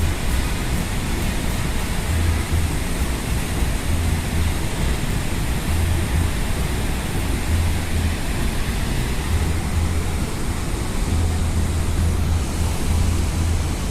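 Large waterfall, Athirappilly Falls on the Chalakudy River, rushing in a loud, steady wash of water noise, with uneven low wind buffeting on the microphone.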